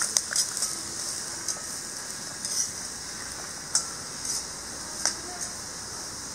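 A perforated steel spatula scraping and tapping around a black iron kadai, stirring grated coconut, dried red chillies and curry leaves as they roast to brown for sambar masala. Irregular short scrapes come about every half second to a second over a steady high hiss.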